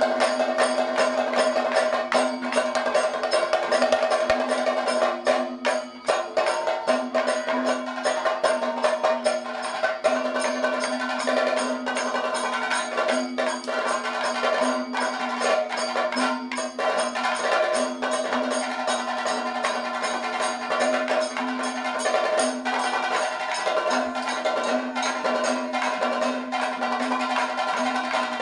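Kathakali percussion accompaniment: a maddalam drummed in fast, dense strokes over a steady ringing pitched tone that breaks off and resumes every second or two.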